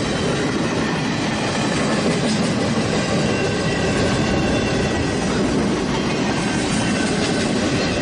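TGV Sud-Est high-speed train running on the rails: a steady rumble and rush of noise with faint high whining tones, and no horn sounding.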